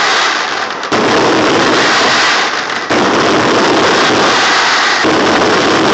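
Aerial fireworks display: shells bursting and crackling so densely that they merge into one loud continuous din, with sharp fresh volleys about a second in, near three seconds and again near five seconds.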